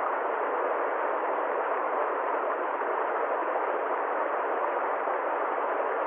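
A steady, even hiss of noise, muffled, with no deep rumble and no high sizzle, unchanging in level throughout.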